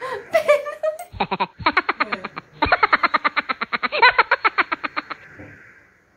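A woman laughing hard: a short exclamation, then two long, fast runs of short laughs, about ten a second, with a brief catch of breath between them.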